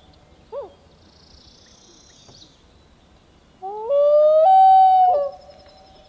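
Common loon calling: a short upslurred hoot about half a second in, then a longer wailing note near the end that climbs in steps, holds steady and breaks off with a downward slur.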